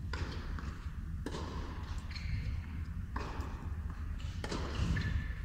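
Tennis ball struck by rackets in a baseline rally: four sharp hits, about one and a half to two seconds apart, each ringing briefly in the large indoor arena.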